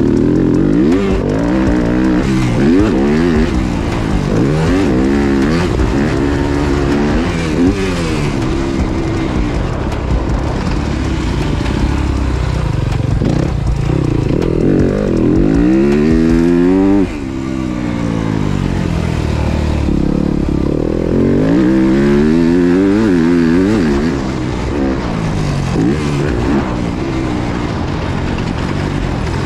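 Yamaha YZ250F four-stroke single-cylinder motocross engine being ridden hard, its pitch repeatedly climbing under throttle and falling back as the rider shifts and backs off for turns. About halfway through, a long climb ends as the throttle snaps shut and the level drops suddenly.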